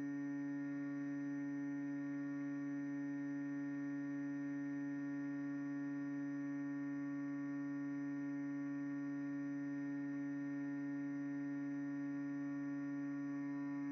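Small electric motor and drive of a radio-controlled model boat running at a constant speed, a steady whine of unchanging pitch.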